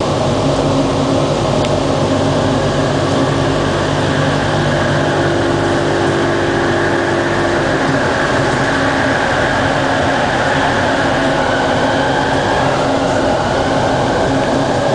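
Bombardier ART Mk II driverless metro train running, heard from on board: a steady hum of several held tones from its linear induction motors over an even rolling rumble.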